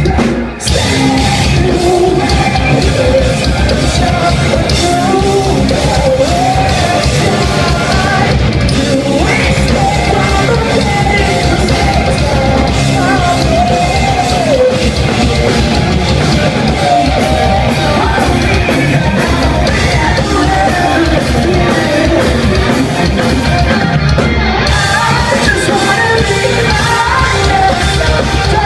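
Live heavy rock band playing at full volume: drums, distorted guitars and bass, with a vocalist singing and yelling over them. There is a brief drop in the sound just after the start, then the song carries on steadily.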